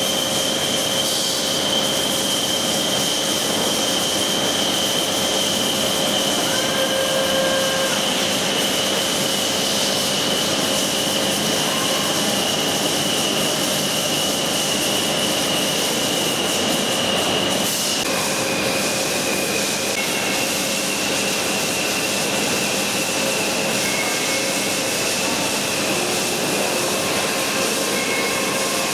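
TOS WFQ 80 NC A horizontal boring machine running: a steady mechanical hum with a high whine and a lower tone over it. The whine steps down in pitch about two thirds of the way through, then settles slightly higher.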